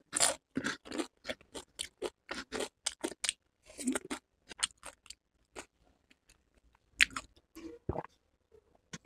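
Close-up crunching and chewing of loaded nacho tortilla chips, crisp crunches coming three to four a second at first and then thinning out. Near the end come a few sounds of drinking from a steel tumbler.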